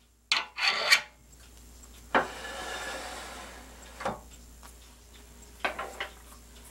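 Metal clicks, knocks and a scrape from setting up a wood lathe: a pen-turning mandrel is pushed into the headstock spindle, then the tailstock is slid along the bed and brought up to the mandrel. A quick run of sharp clicks comes in the first second, a knock and a sliding scrape about two seconds in, and single knocks near four and near six seconds.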